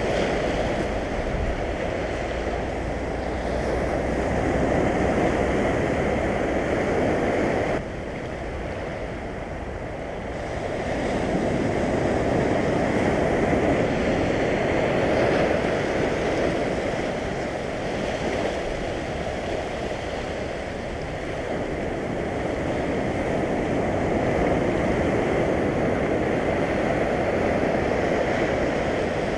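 Sea surf breaking and washing over low shore rocks, a steady rush that swells and ebbs every few seconds, dropping suddenly about eight seconds in before building again.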